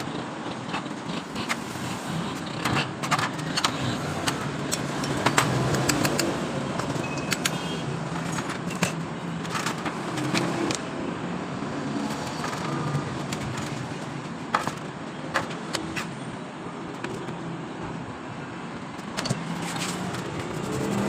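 Steady road traffic noise with scattered sharp metallic clicks and knocks.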